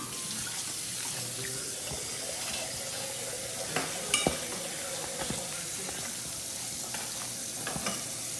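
A hand kneading raw ground beef in a stainless steel bowl: soft squishing with scattered light taps against the bowl, the loudest a little after four seconds in, over a steady hiss.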